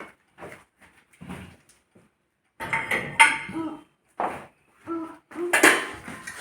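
Dishes and utensils clattering in a kitchen: a run of separate knocks and clinks, some ringing briefly, with short pauses between them.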